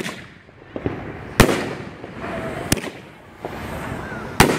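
World Class Honey Badger 200-gram fireworks cake firing shots that burst overhead: three loud bangs about a second and a half apart, with fainter pops between them.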